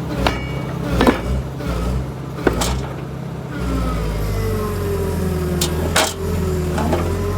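Excavator diesel engine running under shifting load, with several sharp metallic clanks of steel on steel, the loudest about a second in. A long, slowly falling whine runs through the second half. The machine is being worked to get its thrown track back on.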